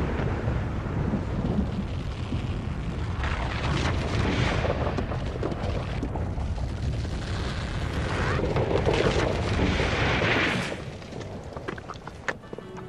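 Rockfall on a mountainside: a deep continuous rumble of tumbling rock and debris, with surges of crashing and clattering, that dies down about eleven seconds in.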